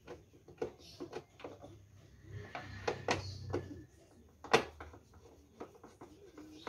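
Screwdriver turning screws into the plastic front panel of a Swan F16 electric knapsack sprayer: a run of small irregular clicks and knocks of metal on plastic, with one sharper knock about halfway through.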